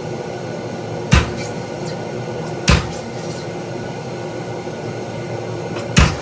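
Treadle hammer striking a spring fuller on hot square steel bar, three separate blows with gaps of about one and a half and three seconds, over a steady background hum.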